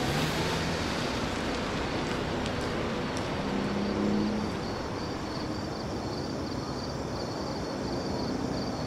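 Steady city traffic noise, with a car pulling away near the start.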